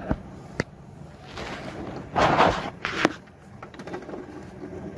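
Plastic cover panel of an HP LaserJet M1005 being unclipped and pulled off: several sharp plastic clicks, with scraping and rubbing in between as the panel's catches let go.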